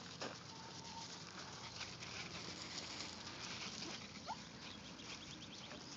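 Dachshund puppies' paws pattering faintly on loose pea gravel as they move about, with a brief squeak about four seconds in.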